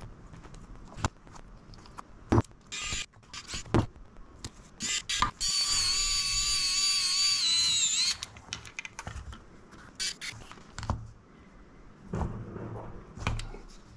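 Electric pen-style precision screwdriver whirring for about two and a half seconds, starting about five seconds in. It drives a screw into a micro drone frame standoff, and its pitch dips just before it stops as the screw seats. Around it are scattered clicks and taps from handling the small screws and carbon frame.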